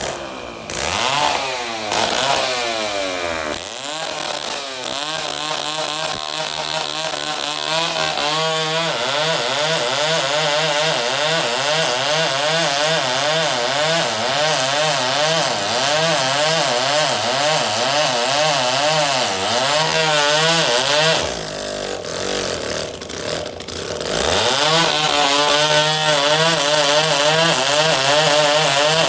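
Chainsaw running at high revs as it cuts wood, its pitch wavering up and down with the load. About three-quarters of the way through it drops back briefly, then revs up again.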